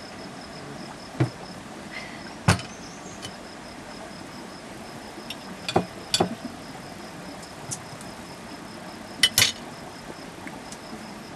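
A cricket chirping steadily in a fast pulsing trill, with a handful of sharp knocks and clinks of crockery, a cup and a bottle being handled on a table, the loudest about two and a half seconds in and a double one near the end.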